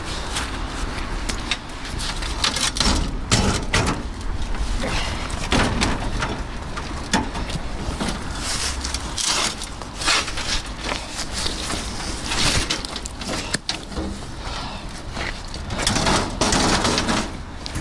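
Metal road-sign frame being hauled out of the canal by hand, clanking and scraping against the edge and the towpath in irregular knocks and rattles, loudest about three seconds in and again near the end.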